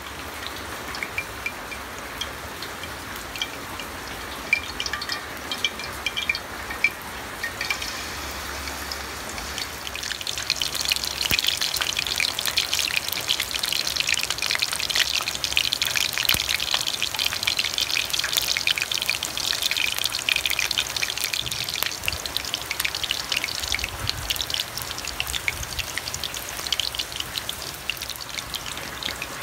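Battered banana flower deep-frying in hot oil: a steady sizzle full of fine crackles, growing louder about ten seconds in.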